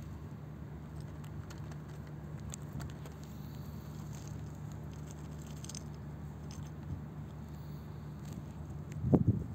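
A mole scratching and nosing among loose gravel: scattered faint small clicks of stones over a steady low hum, with a brief louder burst of sound near the end.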